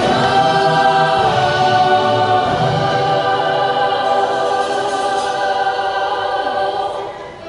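Show choir singing a long held chord in several parts, which fades near the end.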